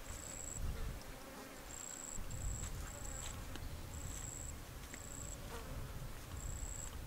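An insect calling in short, very high, steady buzzes about half a second long, seven of them at uneven intervals, over a low rumble.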